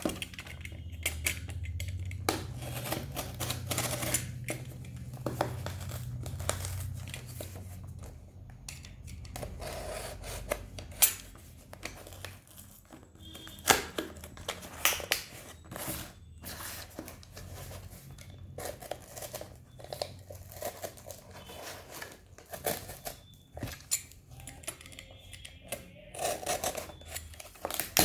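A shipping package being opened by hand: packaging tearing and crinkling, with many scattered sharp clicks and knocks. A low hum runs under the first dozen seconds or so.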